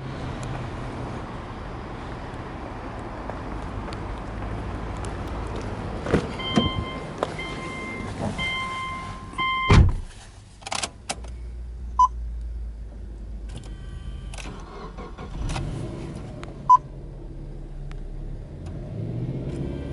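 Subaru Legacy 2.0GT's turbocharged 2.0-litre flat-four idling steadily. A car's warning chime beeps repeatedly with some clicks, then a door shuts with a heavy thump about ten seconds in, after which the idle is heard from inside the cabin. The engine begins to rev near the end.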